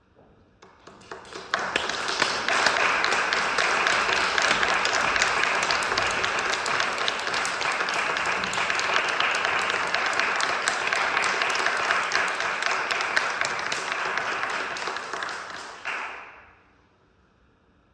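Audience applauding: a few scattered claps about a second in quickly build into steady, full applause, which fades out near the end.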